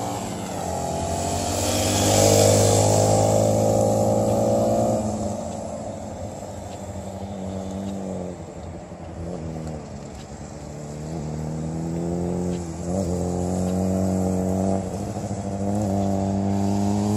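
Motorcycle engine up close, revving as it accelerates and holding high for a few seconds. It then eases off and drops back around eight to ten seconds in, and climbs steadily in pitch again toward the end.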